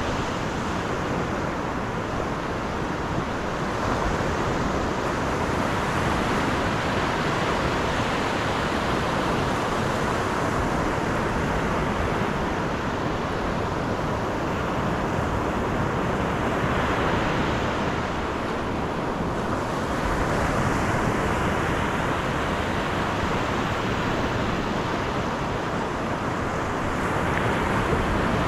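Steady road and wind noise of a car driving, swelling and easing gently every few seconds.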